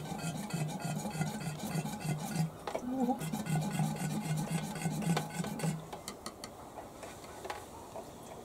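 Hand-operated plunger fuel siphon pump being worked in quick, regular strokes as it draws petrol from a lawnmower's fuel tank, with a short pause about three seconds in. The pumping stops about six seconds in, leaving a few faint clicks.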